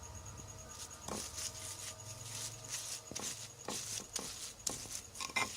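Knife cutting lime leaves on a board: irregular short taps and scrapes, a few a second, starting about a second in, over a faint low hum.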